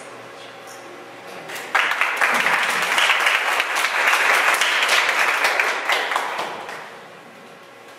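Audience applause: many people clapping, starting suddenly about two seconds in, holding strong for a few seconds and dying away near the end.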